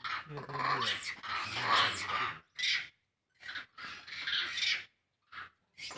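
Monkey screaming in distress in a run of shrill cries: one long scream of about two and a half seconds, then several shorter ones.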